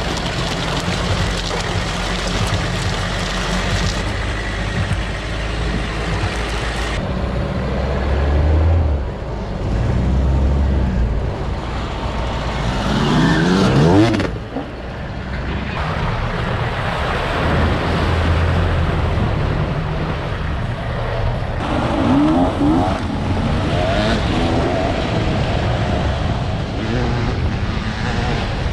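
Four-wheel-drive pickup driving a rough, muddy gravel track: engine running under load with tyre and wind noise, the revs climbing audibly about halfway through and again later. The sound changes abruptly a few times.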